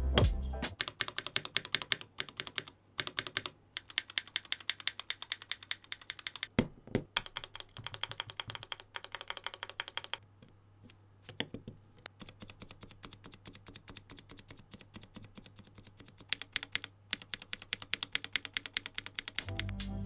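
Fast, repeated clacking of a keycap pressed again and again on a plate-mounted keyboard stabilizer with tactile Ethereal Panda switches, testing the stabilizer. The clicks come in several quick runs broken by short pauses.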